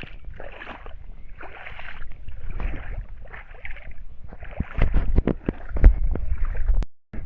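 Footsteps sloshing and squelching through waterlogged clay and rainwater puddles, a step every half-second or so. Heavier low rumbling knocks from about two-thirds of the way in, then the sound cuts out briefly near the end.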